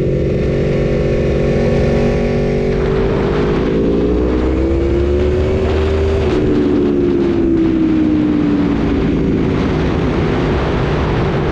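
Aprilia 1100 V4 motorcycle engine running hard: steady for a few seconds, then climbing in pitch through the revs for about three seconds, dropping sharply just past the middle and falling slowly away.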